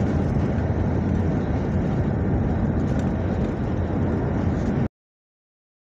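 Steady road and engine noise heard inside a car's cabin while driving on a highway, a low rumble that cuts off abruptly about five seconds in.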